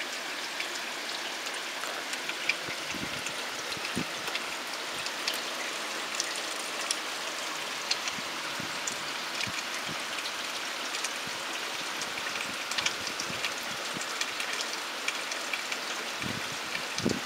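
Steady rain falling on the trees, with scattered single drops ticking through it. Near the end, wind starts buffeting the microphone.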